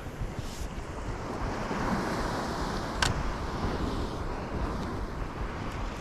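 Steady sea and wind noise: surf washing, with wind buffeting the microphone. A single sharp click about three seconds in.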